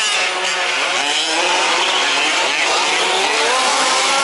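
Several 1/5-scale petrol RC trucks' small two-stroke engines racing together, their whining pitches rising and falling as they rev and ease off through the track.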